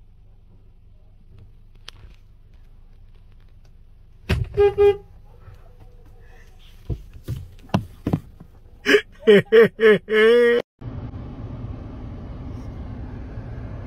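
A loud horn sounding as a prank scare. There is a short double honk about four seconds in, then four short blasts and a longer one that cuts off abruptly near the end.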